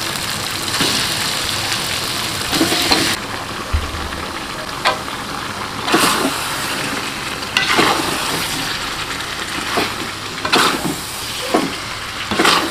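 Chili spice paste sizzling in a hot metal wok, with a slotted metal spatula scraping against the pan every second or two as pakcoy is stirred in.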